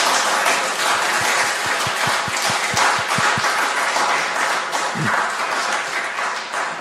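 An audience in a hall applauding at the end of a lecture, a steady dense clapping with a few low thumps in the middle.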